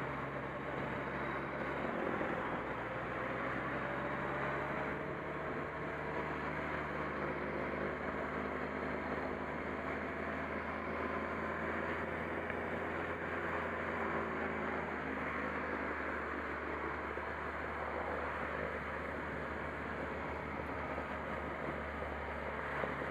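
Motorcycle engine running while riding, under a steady rush of wind and road noise, its pitch drifting a little as the throttle changes.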